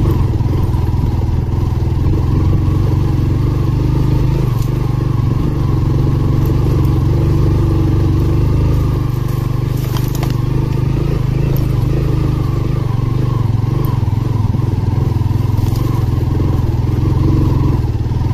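Motorcycle engine running steadily under way on a rough dirt track, with a few brief clicks.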